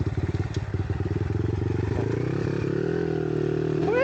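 Small monkey bike engine chugging at low revs over rough ground. Its pitch rises as it revs up about halfway through.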